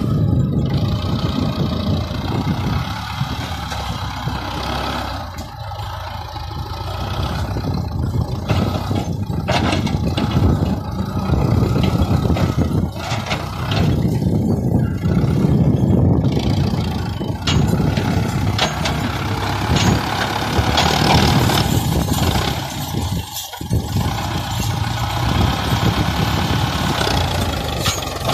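Diesel tractor engine running under load as its front-end loader digs into dry soil and raises the bucket. The engine note rises and falls with the work, with a few short knocks.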